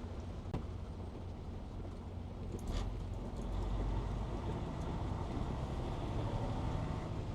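Steady road and engine rumble inside a box truck's cab while driving, with a brief higher-pitched noise about three seconds in.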